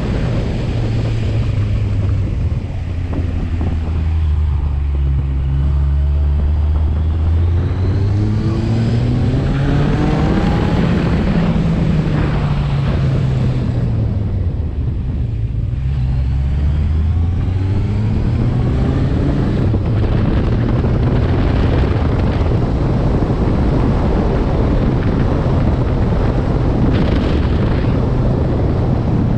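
Vehicle engine running under changing load: its pitch drops and holds low for a few seconds, climbs, falls again around the middle, then climbs once more. In the later part a steady rush of wind and road noise covers it.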